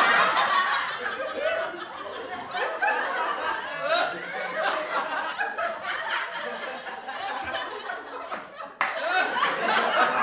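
A crowd laughing and chattering, many voices at once, with a fresh burst of laughter near the end.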